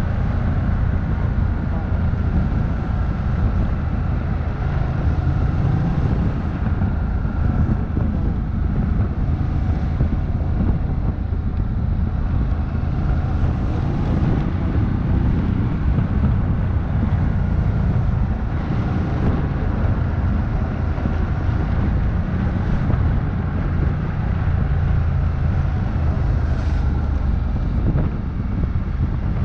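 Ducati Multistrada 1200 Enduro's V-twin engine running at a steady cruise, mixed with wind noise on the microphone riding along with it.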